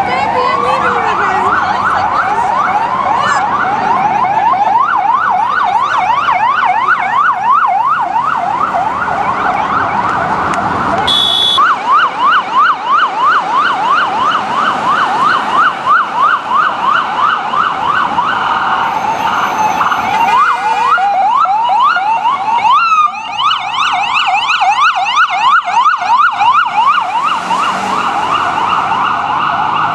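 Ambulance electronic siren in fast yelp mode, its pitch sweeping rapidly up and down about three times a second. It opens at the end of a falling wail, breaks briefly about eleven seconds in and changes tone again around twenty-three seconds before the yelp resumes.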